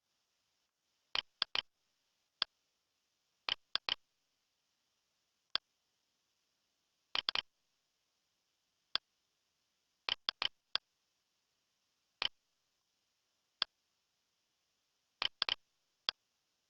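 A series of short, sharp clicks at irregular intervals, some single and some in quick pairs or triples, over a faint steady hiss.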